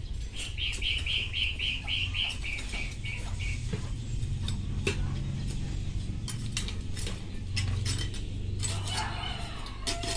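A small hand scoop scraping and knocking as it digs soil out of an overturned terracotta pot, over a steady low hum. In the first three seconds a high chirping repeats about four times a second, slowing and fading.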